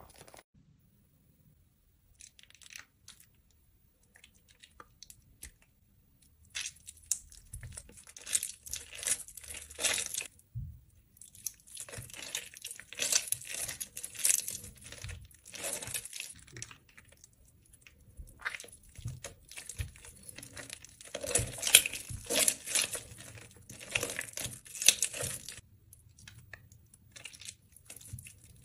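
Soaked, mushy bar soap being squeezed and crumbled in wet hands, giving runs of wet crackling and crunching. Near silence for the first several seconds, then the crackling comes in bursts with two short pauses, easing off near the end.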